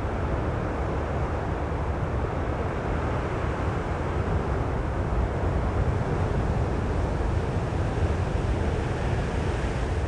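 Steady wind buffeting the microphone, a low flickering rumble, over the continuous wash of large breaking ocean surf.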